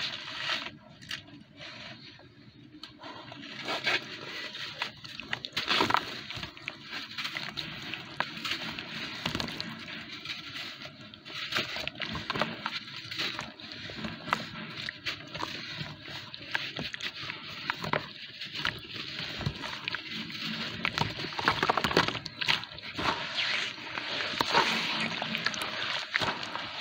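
Yellow sand blocks crumbled by hand into water in a plastic tub, with the wet sand squeezed and kneaded: a continuous crackling and sloshing full of small clicks. It is sparse at first and gets busier about four seconds in.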